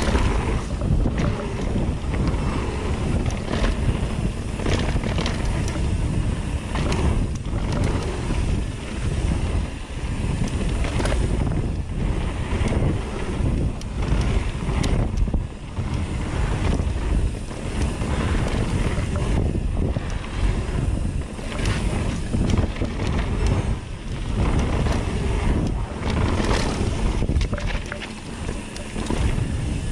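Wind rushing over the microphone and tyre rumble of a mountain bike riding fast on a dirt trail, with frequent short knocks and rattles as the bike bounces.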